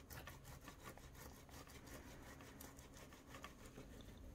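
Faint, quick rasping strokes of a soft boiled potato being rubbed over a coarse round stainless-steel grater.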